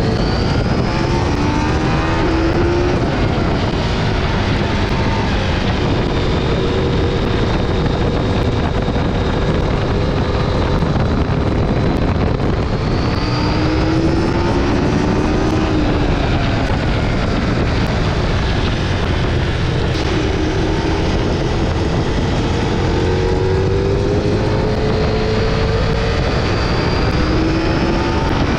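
Motorcycle engine running on the move, its pitch rising several times as the bike accelerates, over steady wind and road noise.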